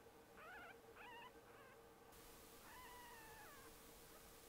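Newborn fox kit crying faintly: a few short, wavering cries in the first second and a half, then one longer cry that rises and falls about three seconds in.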